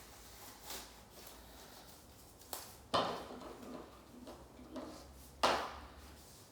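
A few sharp knocks from things being handled, the two loudest about three seconds in and about five and a half seconds in, with a lighter click just before the first.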